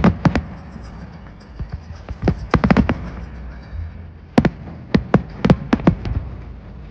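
Fireworks exploding: an irregular run of sharp bangs coming in clusters, over a steady low background rumble.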